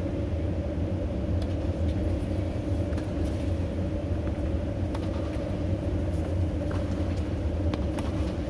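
Steady low rumble of a road vehicle running, with a few faint clicks.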